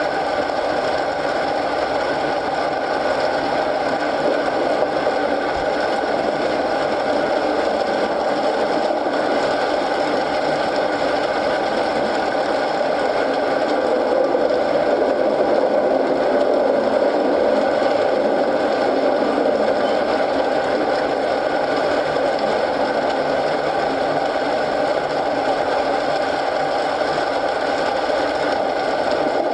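Rain and a fireplace fire mixed as a steady, dense hiss that stays even throughout, swelling slightly about halfway through.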